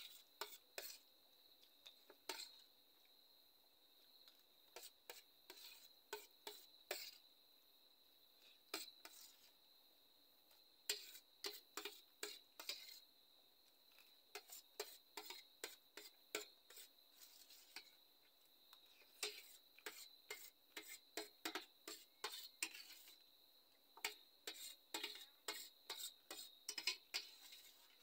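Spoon clinking and scraping against a stainless steel plate while noodles are eaten, in quick irregular clicks that come thicker in the second half.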